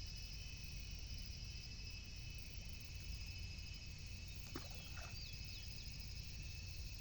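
Outdoor ambience of steady insect trilling over a low rumble, with a click and a few short, falling high chirps, likely from a bird, a little past halfway.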